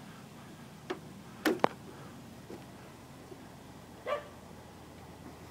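A dog giving a few short barks, with a sharp click just after the second one.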